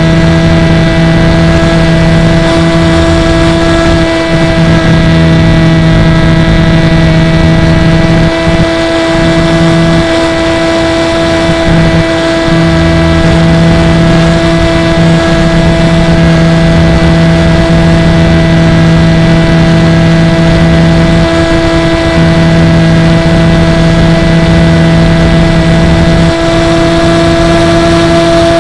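Electric motor and propeller of an FPV drone running at steady throttle, heard through its onboard camera: an even, loud whine with a steady pitch, its lowest tone dropping out briefly a few times a third of the way in and again later.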